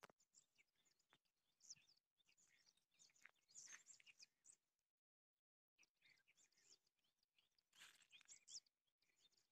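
Faint birds chirping: quick, high twittering notes that come in little clusters, about three and a half seconds in and again near the eight-second mark.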